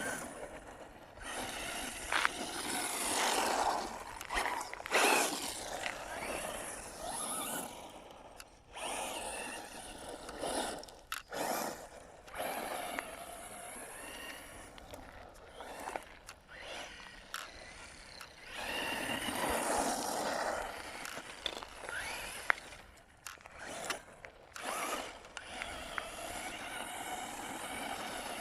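Quanum Vandal RC buggy driving over rough dirt: its motor whines in surges that rise and fall with the throttle, with the tyres scraping and crunching over the loose ground.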